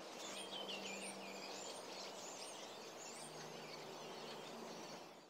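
Faint outdoor ambience with birds chirping: repeated short high chirps over a steady hiss and a low hum. It stops abruptly at the end.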